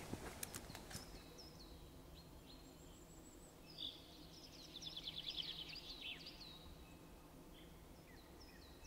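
Faint woodland birdsong: scattered short chirps and a quick trill of rapid notes about five seconds in, with a few light footsteps on the forest path in the first second.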